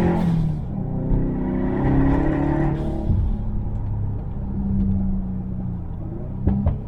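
Subaru WRX STi's EJ257 2.5-litre turbo boxer engine, with its muffler deleted, heard from inside the car: it pulls up through the revs, the revs drop sharply about three seconds in, and it then runs steady at lower revs. Two sharp cracks come near the end.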